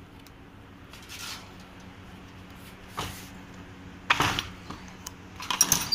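A mesh screen door being handled and pulled shut: a click about three seconds in, a rattle a second later, and a quick cluster of clicks and rattles near the end as it is latched.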